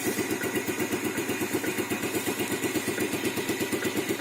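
Yamaha Vega ZR's single-cylinder four-stroke engine idling steadily through its exhaust, an even run of regular pulses.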